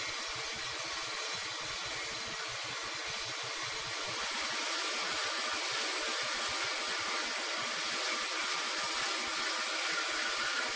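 Ellis 1800 series horizontal bandsaw running, its blade fed slowly and cutting dry through the quarter-inch steel wall of a compressed gas cylinder: a steady cutting noise that grows a little louder about four seconds in.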